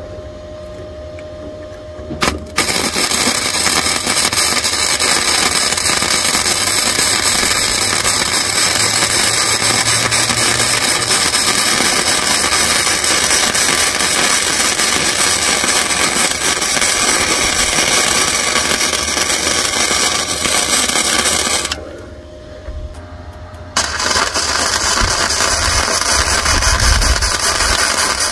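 Wire-feed welding arc from an hzxvogen multi-process welder, crackling and sizzling steadily with the heat turned up a bit. It starts a couple of seconds in, runs for about twenty seconds, stops for about two seconds and then starts again.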